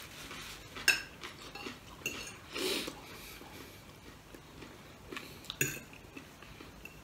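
Fork clinking and scraping on a plate of food: a handful of separate short clinks, the sharpest about a second in.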